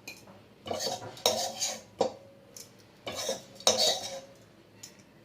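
A spoon scraping and scooping cooked potato curry out of a metal pan into a serving bowl, in about five separate clattering scrapes with a little ringing from the metal.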